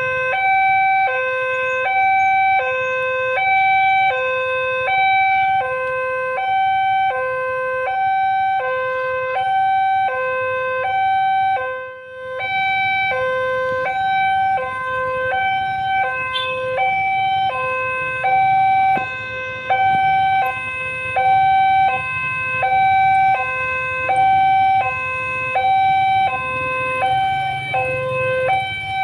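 Railway level-crossing warning alarm sounding its electronic two-tone ding-dong, alternating between a low and a high tone about once a second, the signal that a train is approaching and the barrier is down. A faint low hum of waiting traffic runs underneath, and the alarm breaks off briefly about twelve seconds in.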